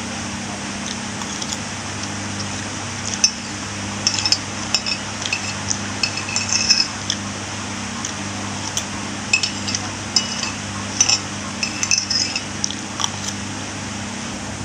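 Cutlery clinking against a dish in quick scattered runs, as food is scooped up while eating, over a steady low hum.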